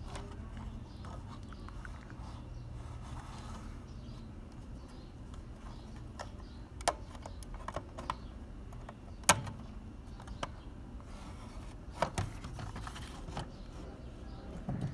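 A few sharp, scattered clicks and taps of small hard objects being handled, the loudest about two-thirds of the way through, over a steady low hum.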